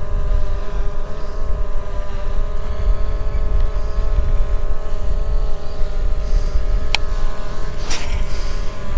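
A fishing kayak's drive running under way: a steady whine of several held tones over a loud low rumble. A sharp click comes about seven seconds in, and a short hiss about a second later.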